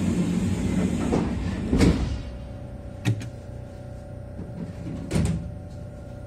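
Kintetsu 6432-series train doors sliding shut, ending in a thud about two seconds in. Two short sharp sounds follow over a steady hum from the standing train.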